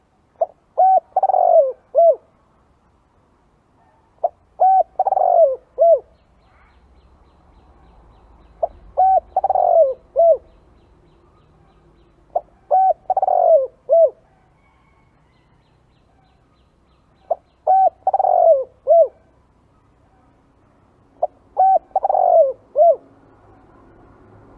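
Spotted dove cooing: six repeated phrases about four seconds apart. Each is a quick run of short coos, then a drawn-out falling coo and a short final note.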